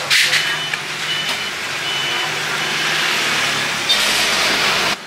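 Street traffic running close by, swelling louder through the middle and end as a vehicle passes, with a low engine hum and a few short high beeps. A metal ladle clatters against the pot and takeaway box at the start.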